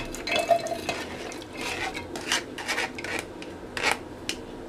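Stainless steel mesh strainer knocking and scraping against the rim of a steel mixer-grinder jar as boiled bottle gourd pieces are tipped in: several sharp metallic taps amid scraping.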